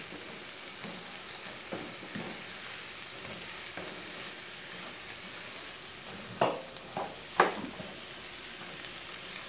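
Cooked beans sizzling in bacon fat in a nonstick frying pan while a spatula stirs them: a steady frying hiss with soft scraping strokes. About six and a half to seven and a half seconds in, the spatula knocks against the pan three times, louder.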